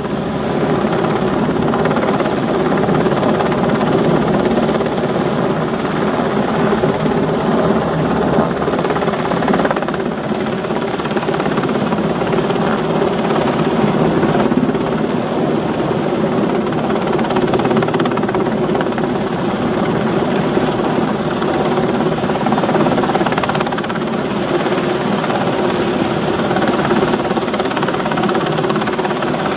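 Sikorsky UH-60 Black Hawk helicopter hovering with a slung load, its rotor and twin turboshaft engines running steadily and loudly.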